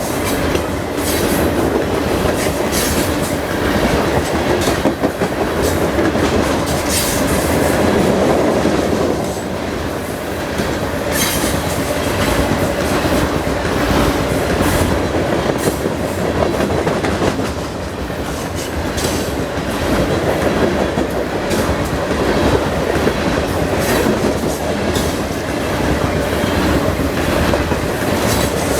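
Canadian National freight train rolling past, a loud continuous rumble of its cars with steel wheels clacking over rail joints at uneven intervals.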